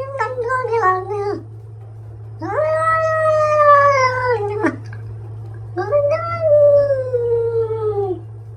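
A cat meowing in long, drawn-out yowls. One call is ending about a second in, then come two more of about two seconds each, and the last slides down in pitch.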